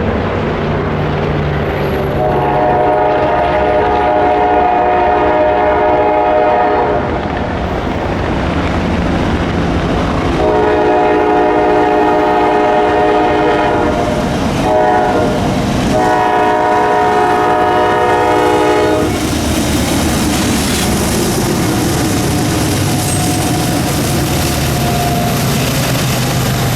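Train air horn sounding a chord in four blasts, long, long, short, long: the standard grade-crossing warning. A steady low rumble of the moving train runs underneath and carries on after the horn stops.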